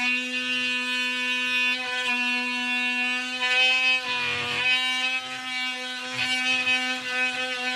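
DeWalt oscillating multi-tool buzzing steadily as its blade cuts into the base of a cupboard, its pitch dipping briefly about four seconds in.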